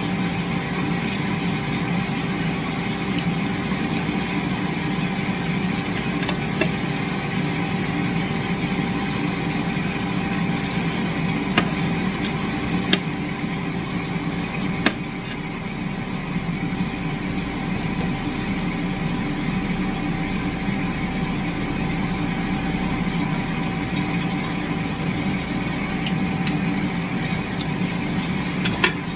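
Steady mechanical hum with several steady tones, like a small motor running, with a few sharp clicks of tongs against the pan partway through.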